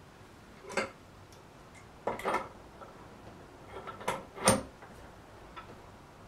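Metal hand tools, pump pliers and an adjustable spanner, clicking and knocking against a crosshead tap and the ceramic basin while the tap is tightened back up: a handful of short sharp clicks, the loudest about four and a half seconds in.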